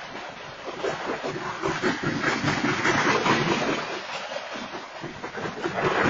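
Freight train hopper cars rolling past on the rails, a steady rushing of wheels and car bodies that swells and eases, heard through a security camera's microphone.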